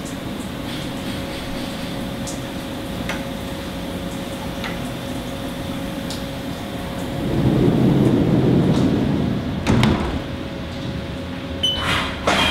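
Haas CNC vertical mill running with a steady hum and a steady tone, with light clicks of parts and tools in its vises. About seven seconds in a louder rumble rises for some two seconds, and a sharp bang comes near ten seconds in as the machine's sliding enclosure doors close.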